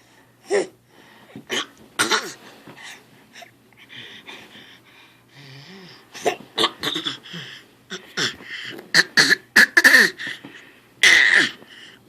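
Six-month-old baby making a string of short, breathy vocal noises, sparse at first, then coming faster and louder in the second half.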